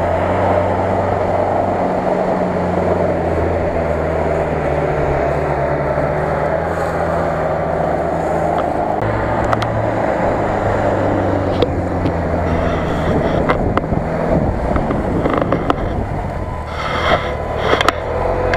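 UAZ-469 off-roader's engine running under load as it drives through rough grass, its note shifting about nine seconds in. Scattered clicks and scrapes come in over the last few seconds.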